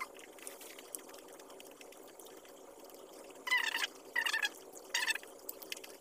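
Small clicks and smacks of rice and adobo chicken gizzards being eaten by hand, with chewing, over a steady low hum. About three and a half seconds in come three short high-pitched cries, the loudest sounds here.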